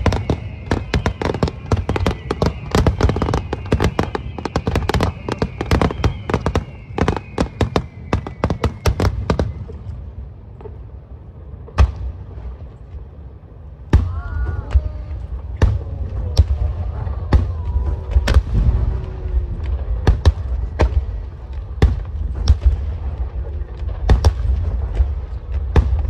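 Starmine fireworks barrage. A rapid run of shell bursts and crackling comes with several falling whistles for about ten seconds, then thins to scattered bangs. About fourteen seconds in, heavy booming salvos start again.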